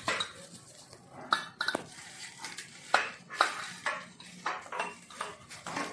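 Metal conveyor frame parts clinking and knocking together as they are handled and fitted, several sharp knocks with the loudest about three seconds in, and the plastic stretch wrap on the frame crinkling between them.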